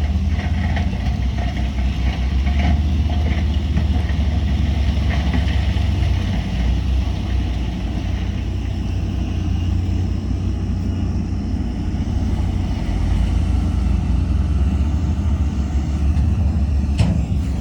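Heavy diesel engine of earthmoving machinery running steadily with a deep rumble, and a single sharp knock near the end.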